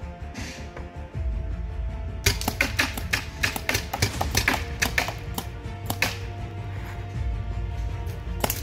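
Paintball marker shots: a fast, irregular volley of sharp pops lasting about four seconds, starting about two seconds in, with one more pop near the end. Background music runs underneath.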